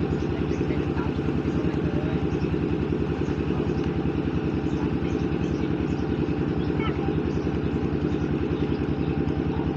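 A small engine running steadily, a fast even pulsing hum that does not change.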